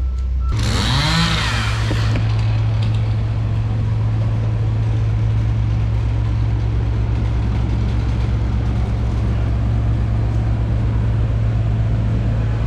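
Backhoe diesel engine revving up about half a second in, as its reversing beeper stops, then running steadily at high speed.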